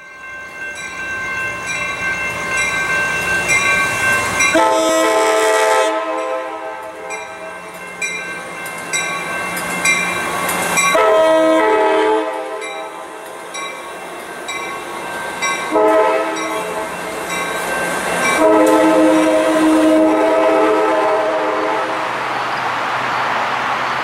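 A passenger train's multi-note horn sounds four blasts, the last the longest, over a bell ringing at a steady rhythm. The rushing noise of the moving train grows near the end.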